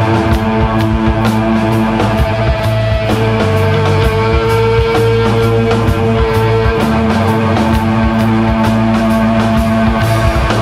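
Three-piece rock band playing live: electric guitar, bass guitar and drum kit in an instrumental passage. The held chords change about three seconds in and again near seven seconds.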